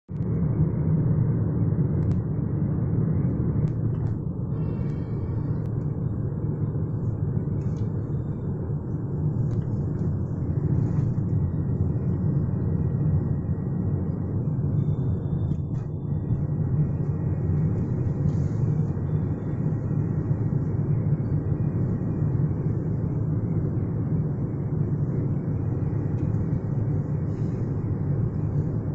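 Steady road and engine rumble inside the cabin of a moving car, with a few faint clicks.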